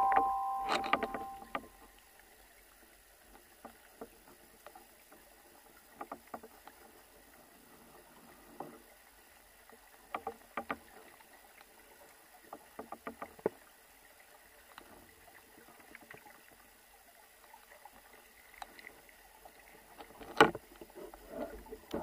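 Faint scattered clicks and taps heard underwater through a diving camera's housing, with one louder knock near the end. The tail of background music fades out in the first second or so.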